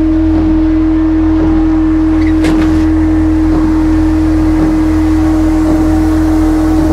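Opening music: one low note held steady over a deep bass drone, with a short hit about two and a half seconds in.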